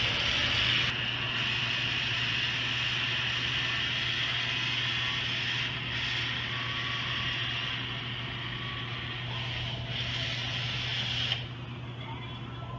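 Battery-powered caulking gun motor running steadily as it pushes out a bead of urethane, dipping briefly a few times, then cutting off with a click near the end.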